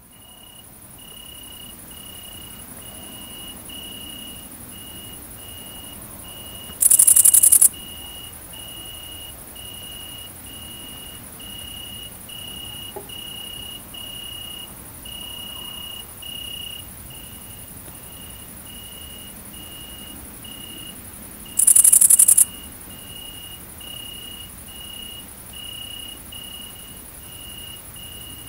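Great green bush-crickets singing: a steady, very high-pitched buzz, with two loud short bursts about 7 and 22 seconds in. Under it, a lower-pitched insect chirp repeats slightly faster than once a second.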